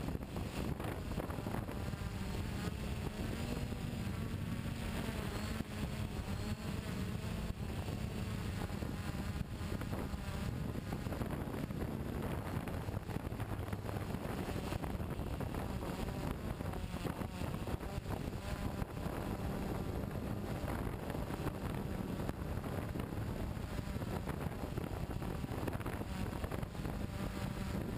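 Steady motor drone of the radio-controlled model carrying the camera, its pitch wavering as the throttle changes, with wind rushing over the microphone.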